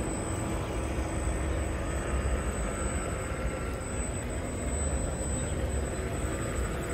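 Radio-controlled model ferry's motors running as the boat turns across the water, a faint high whine that wavers in pitch over a steady low rumble.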